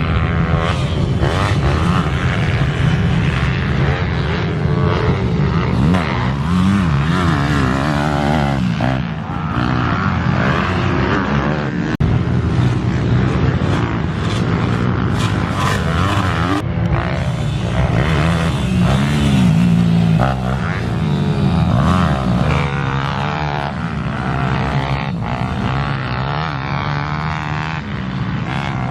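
Pit bike engines revving up and down on a motocross track, the pitch rising and falling continuously as the bikes accelerate and back off.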